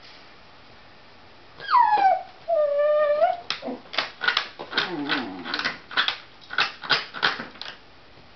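West Highland white terrier whining hysterically at a cat it sees outside. A few seconds in comes a whine that slides down in pitch, then a steady held whine, then a quick string of about ten short, sharp whimpering yips.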